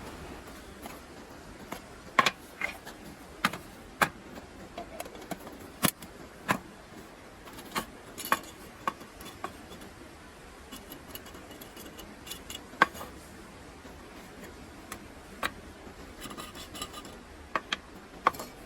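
Wood campfire crackling: irregular sharp pops and snaps at uneven intervals over a low steady hiss.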